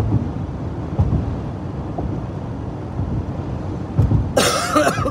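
Steady low road and engine rumble inside a moving car, with one loud cough from the driver about four seconds in.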